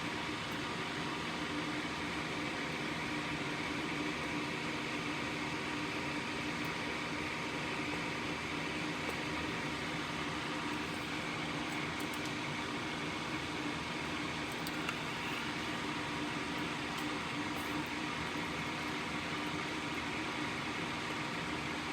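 Steady background machine hum with a few faint ticks.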